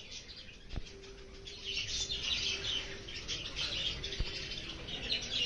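Many small birds chirping, with the chatter growing denser after about a second and a half; a faint steady hum and two soft clicks underneath.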